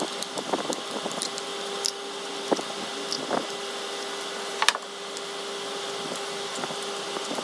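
Small Phillips screwdriver working the little screws out of an aluminium kart-engine reed cage: scattered light clicks and scrapes of metal on metal, with a sharper click about four and a half seconds in, over a steady background hum.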